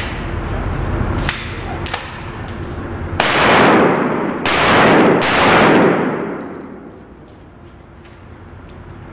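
Pistol shots echoing in an indoor range: two sharp cracks about a second in, then three loud shots between about three and five and a half seconds in, each trailing off in a long echo.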